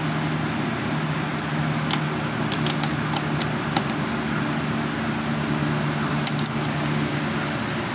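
A steady mechanical hum, with a few light metallic clicks of hand tools and engine parts being handled: a cluster about two to three seconds in, and another about six seconds in.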